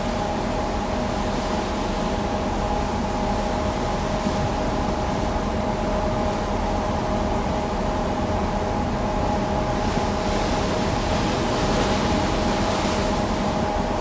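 Steady rush of foaming water churned up along a moving ship's side, under a steady hum of the ship's machinery that carries two held tones.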